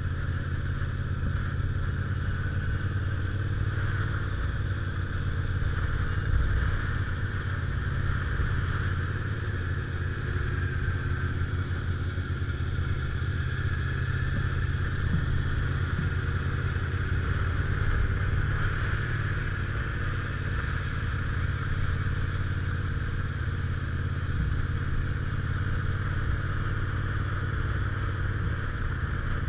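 Motorcycle engine running steadily at an even cruising speed, heard from on the bike itself, with a constant low rumble and road and wind noise mixed in.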